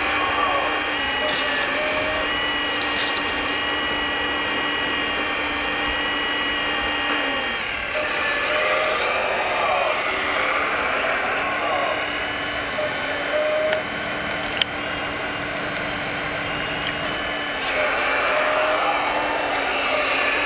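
Electric motors of 1/14-scale radio-controlled construction models running with a steady whine, made of several tones that change pitch about eight seconds in and again near the end. A single sharp click comes about two thirds of the way through.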